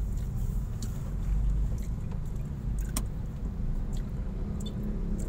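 Low, steady rumble of a car's engine and road noise heard from inside the cabin of a Honda Mobilio creeping in slow traffic. A few faint clicks, and one sharp click about three seconds in.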